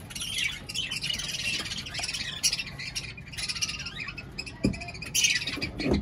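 A colony of budgerigars chattering and squawking, a dense mix of many short high calls. A couple of sharp knocks sound near the end.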